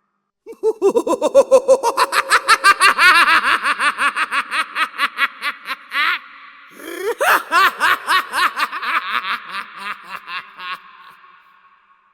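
Joker-style evil laugh: a fast, high-pitched cackle in two runs of rapid "ha-ha" pulses. The first run lasts about five seconds and breaks off. The second opens with a rising whoop and trails away.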